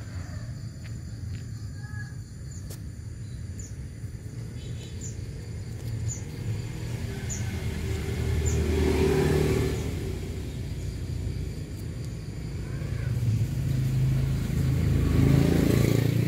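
Motor vehicles passing close by: a low engine rumble that swells about halfway through and again near the end.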